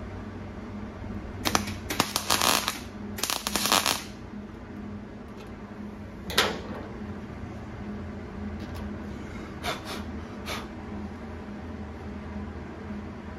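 Wire-feed (MIG) welder laying tack welds on a steel hood patch panel: three short bursts of crackling arc between about one and a half and four seconds in. A single sharp click follows about six seconds in, with a few faint clicks later, over a steady low shop hum.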